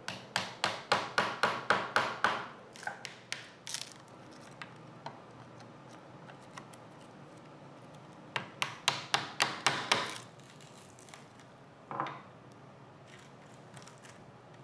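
A small hammer tapping a thin metal pick to break loose bark out of a pocket in a walnut board: two quick runs of taps, about five a second, with scattered lighter clicks and scraping between them and one more tap later on.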